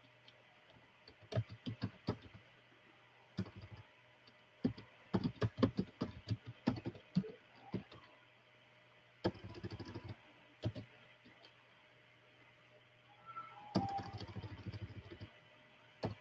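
Typing on a computer keyboard in four short bursts of keystrokes with pauses between, over a steady low hum.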